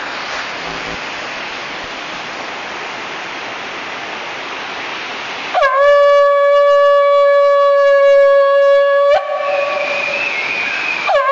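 Shofar blown. After a steady rushing noise, a long steady blast starts about halfway in and is held for about three and a half seconds. It then breaks to a higher, wavering note, and a new blast begins right at the end.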